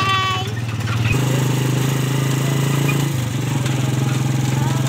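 Small motorcycle engine running steadily under way, heard from the passenger seat as the ride goes on. The engine note gets louder about a second in and eases briefly near three seconds.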